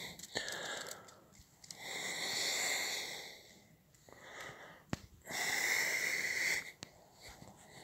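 A person breathing close to the microphone: two long, hissy breaths a few seconds apart, with a single click between them.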